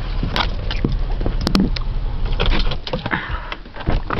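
A car door opening and a person climbing out: a string of short clicks, knocks and rustles over a steady low rumble.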